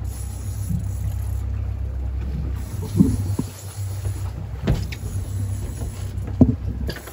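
Boat's outboard motor running steadily as a low rumble, with a few sharp knocks on the hull or gear, the loudest about three seconds in and near the end.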